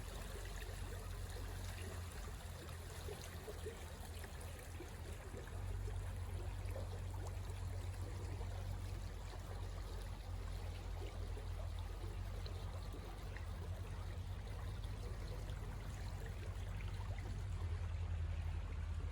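Steady rushing of a flowing stream, with a low rumble underneath that grows louder about five and a half seconds in.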